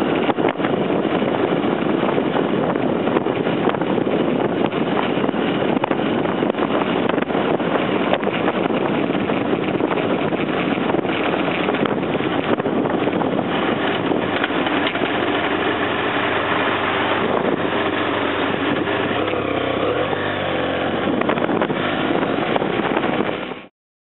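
Onboard riding noise from a BMW F800ST's 798 cc parallel-twin engine, running steadily, mixed with wind rushing over the microphone. The engine note comes through a little more clearly late on, and the sound cuts off abruptly near the end.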